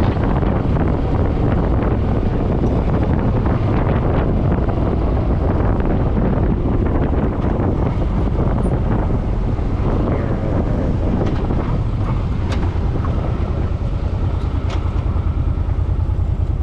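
Kymco People 250 scooter's single-cylinder engine running steadily after being coaxed to start on low fuel, with wind buffeting the microphone.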